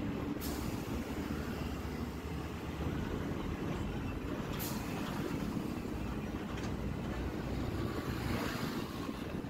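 Steady low rumble of a moving bus's engine and tyres, heard from its window seat. Three short hisses cut through, about half a second in, near the middle and a little later, and a hiss swells up near the end.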